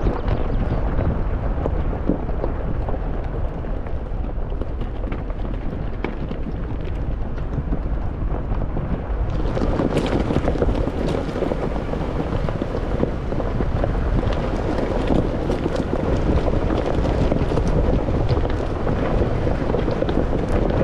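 Steady outdoor noise of wind buffeting the microphone over flowing river water. About halfway through, the sound turns suddenly brighter and fuller.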